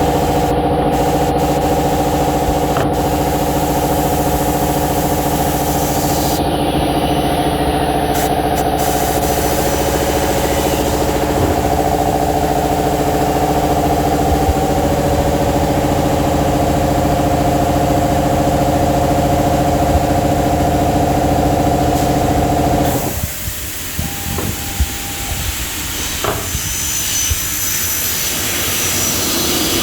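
Automatic aluminium-profile cutting machine running with a steady hum of several tones. About 23 seconds in the hum stops, leaving a quieter hiss with a few clicks.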